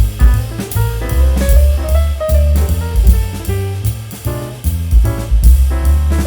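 Background music: jazz-style instrumental with drum kit, bass and melodic instruments playing a steady beat.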